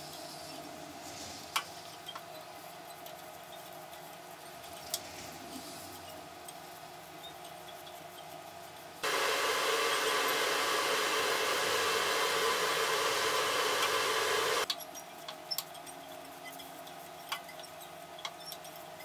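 A steady rushing blower noise, like an electric air blower or fan, switches on suddenly about nine seconds in and cuts off abruptly about six seconds later. Around it there is a low steady hum with a few faint clicks and taps of handling.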